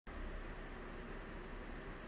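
Steady whir and hiss of a running water-cooled PC's fans and pump, even and unchanging.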